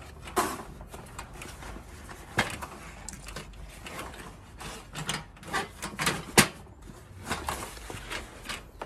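A metal tabletop charcoal grill being slid into its fabric carrying case: the bag rustling, with scattered knocks and clicks of the metal frame and grates, the sharpest about six and a half seconds in.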